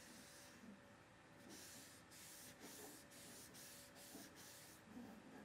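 Very faint rubbing of a cloth wiping oil varnish onto a wooden trivet, in soft repeated strokes a few times a second over faint room hum.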